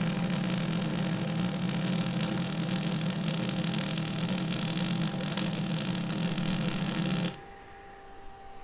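Electric arc welding on the steel flatbed frame: one continuous bead, a dense buzzing crackle that stops abruptly about seven seconds in. A faint steady hum from the shop runs underneath and carries on after the arc stops.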